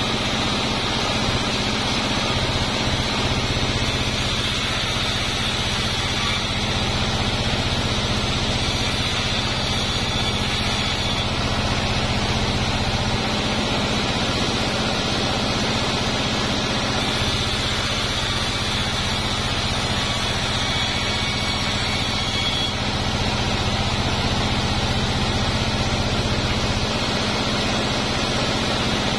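Band-saw mill running steadily, its blade cutting durian-wood planks over a constant low machine hum. A higher whine comes in twice, a few seconds in and again past the middle.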